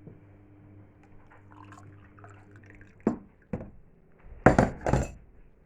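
A washing machine running, with a steady low hum and water sounds. About three seconds in come a few sharp thumps, the loudest two close together near the end.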